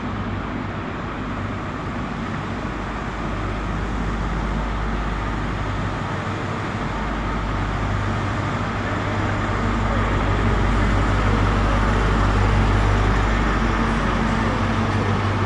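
Class 43 HST power car's MTU diesel engine running with a steady low hum as the train runs slowly into the platform, growing louder as the power car comes alongside.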